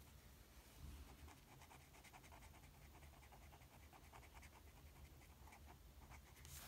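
Faint scratching of a felt-tip marker on paper, quick back-and-forth colouring strokes, several a second.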